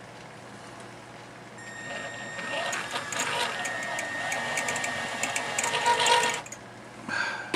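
Handheld drill with a clutch-ring chuck running a small bit through a punched hole in thin stainless steel sheet, rounding it out: a steady motor whine with the bit grinding on the metal. It starts about a second and a half in, runs for about five seconds, and stops shortly before the end.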